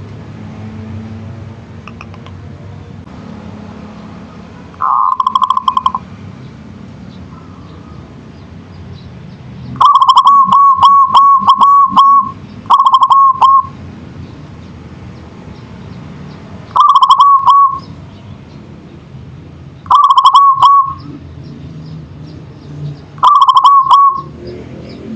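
Zebra dove (local perkutut) cooing: six short phrases of rapid, stuttering coo notes, the longest about two seconds, with pauses of a few seconds between them. A faint low steady hum runs underneath.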